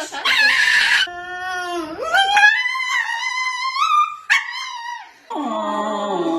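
A dog howling and whining in several long calls. One rises slowly in pitch through the middle, and a lower whine falls in pitch near the end.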